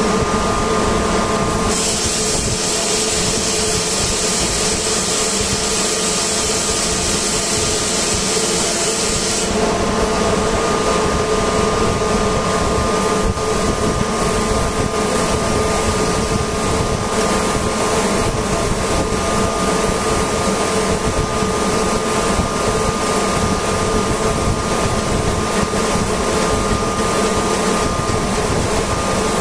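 Steady hum of machinery running in a compressor room, with constant tones. From about two seconds in, a loud hiss of escaping air joins it and cuts off suddenly at about nine and a half seconds.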